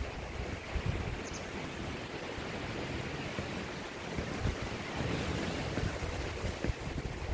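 Surf washing onto a beach, a steady rushing noise, with wind buffeting the microphone in irregular low gusts.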